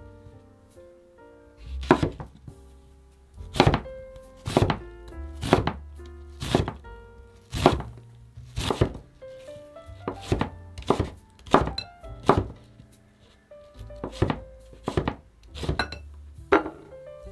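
Chef's knife chopping tomato and then onion on a wooden cutting board: single firm knocks of the blade on the board, about one a second, over background music.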